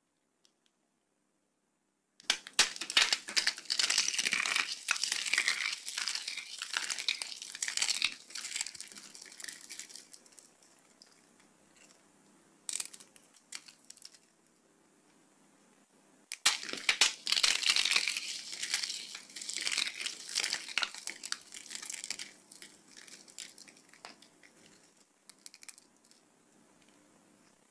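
Dry soap and tiny soap balls crumbled and crushed by fingers: dense, crisp crackling that starts about two seconds in and tails off, then a second long spell from just past the middle.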